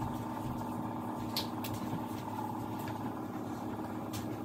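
Steady mechanical hum at several fixed pitches, with a few faint ticks.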